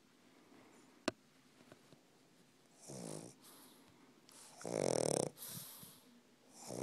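Pug snoring in its sleep: rattling snores about two seconds apart, the second the loudest, with another just beginning near the end. A sharp click about a second in.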